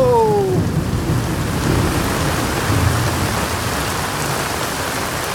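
Heavy rain pouring down steadily, with a low rumble of thunder rolling and dying away in the first few seconds.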